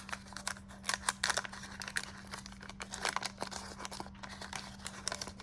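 Wax-paper wrapper of a 1989 Fleer baseball card pack being torn open and crinkled, an irregular run of crackles and rustles.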